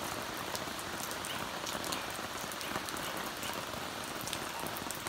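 Steady rain falling on a broad banana leaf and the surrounding plants: an even hiss dotted with many sharp ticks of individual drops striking.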